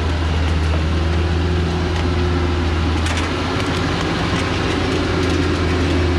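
Diesel engine of a heavily loaded acacia-log truck working hard at a steady pitch as it crawls up a muddy slope, with a few sharp cracks on top.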